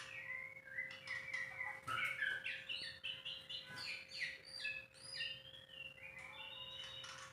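White-rumped shama singing a continuous, varied song of short whistled notes that glide up and down, with a faint steady hum underneath.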